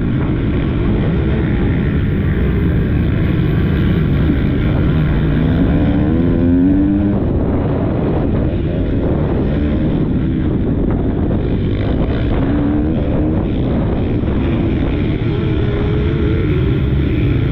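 Motocross bike engine revving hard under acceleration, its pitch climbing again and again as the rider works the throttle through the gears, with wind rushing over a helmet-mounted camera's microphone.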